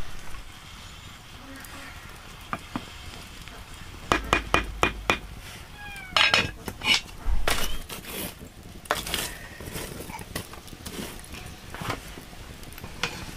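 Metal pot lid and aluminium cooking pot clinking and clattering over a wood fire: a string of sharp knocks and clinks from about four to ten seconds in.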